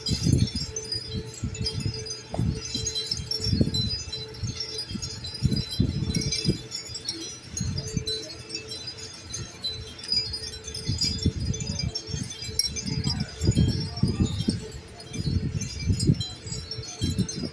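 Many wind chimes of different styles ringing together: a constant overlapping jumble of high, bell-like tinkling tones. Irregular low thumps and rumbles come and go underneath and are the loudest moments.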